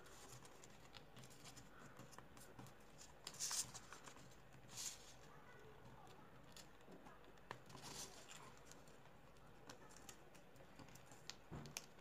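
Faint rustling and creasing of a sheet of paper being folded by hand, with short swishes and small clicks; the louder swishes come about three and a half, five and eight seconds in.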